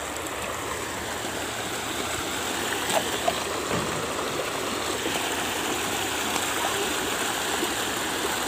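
Small shallow river running over rocks, a steady rush of water, with two short clicks about three seconds in.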